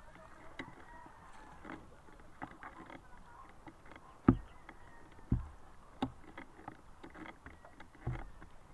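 Lake water lapping and sloshing close by, with many small clicks and ticks and four dull thumps, the loudest about four seconds in.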